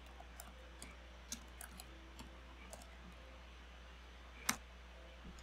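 Faint computer keyboard keystrokes, a scattering of soft clicks, with one louder click about four and a half seconds in.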